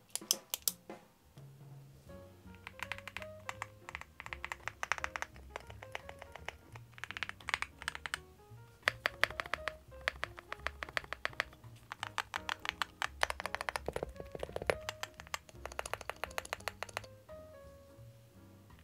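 Typing on a Cupid-65 gasket-mount 65% custom mechanical keyboard: quick runs of key clicks in bursts with short pauses, over background music.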